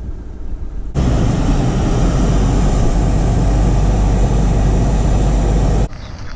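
Volkswagen wagon driving on a snowy road, heard from inside the cabin: a steady, loud rumble of engine and road noise that cuts in sharply about a second in and cuts off just before the end.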